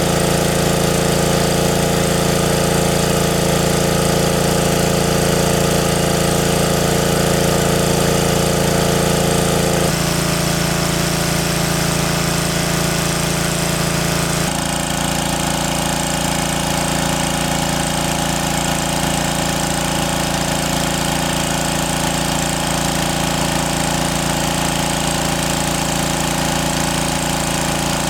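A small engine running steadily and loudly, its tone shifting abruptly about ten seconds in and again about fourteen seconds in.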